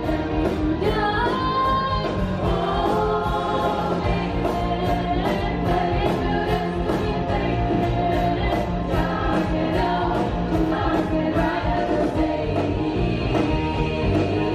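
Women's choir singing with a live band of keyboard, electric guitar and drums, over a steady beat.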